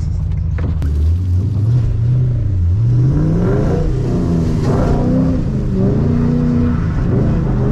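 Ford Mustang GT's 4.6 L three-valve V8, heard from inside the cabin, revving hard under throttle as the car pulls away on wet pavement. The revs climb over the first three seconds or so, then are held high and wavering.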